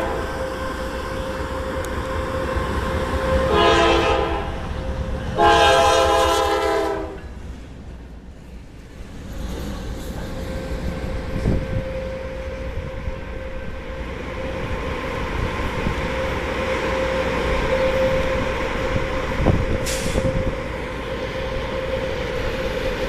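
Norfolk Southern diesel locomotives running light through a grade crossing. The lead unit's air horn sounds: a blast fading at the start, then a shorter blast about three and a half seconds in and a longer one at about five and a half seconds. From about ten seconds in, the diesel engines and wheels rumble past, with a few knocks.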